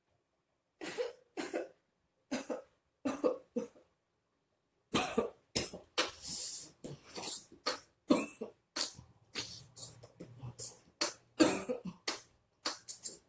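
A person coughing: a few separate coughs, some in pairs, in the first few seconds, then a rapid, continuous coughing fit from about five seconds in.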